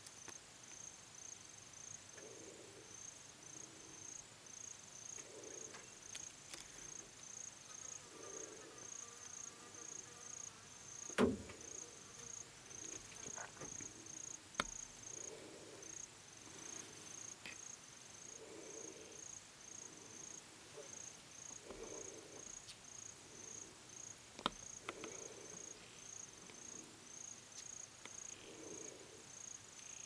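High-pitched insect chirping, like a cricket, in a steady run of short pulses about two or three a second. A sharp knock comes about eleven seconds in, and there are a couple of fainter clicks later.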